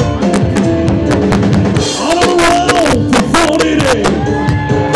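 Live band playing: piano, drum kit and guitar, with a voice singing from about two seconds in.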